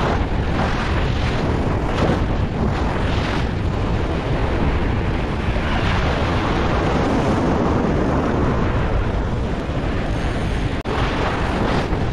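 Wind buffeting the microphone over the wash of surf, a loud steady rumble with gusts, briefly dropping out near the end.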